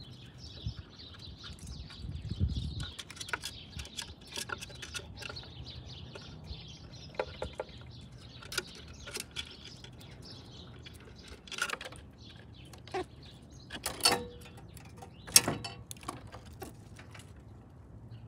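Small birds chirping in the background, with scattered sharp clicks and scratches throughout. The loudest clicks come about 14 and 15 seconds in.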